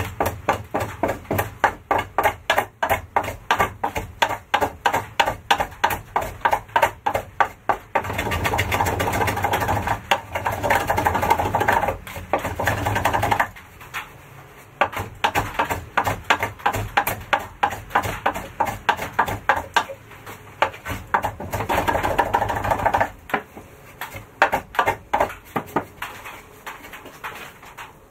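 Hand saw cutting into a thick wooden beam in steady back-and-forth strokes, about three a second. Twice the strokes run together into a few seconds of continuous sawing noise.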